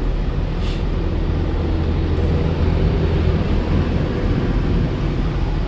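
Steady road and engine noise heard inside a moving vehicle: a constant low drone under an even rush of tyre and wind noise.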